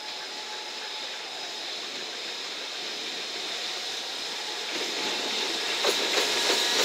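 JR Freight container train led by an EF210 electric locomotive approaching. Its running noise grows steadily louder, and in the last two seconds the wheels begin to clatter over the rails.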